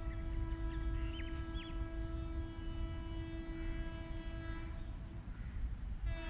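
An approaching WAP7 electric locomotive's horn held in a long steady blast, breaking off about five seconds in and sounding again near the end, over a low wind rumble, with small birds chirping.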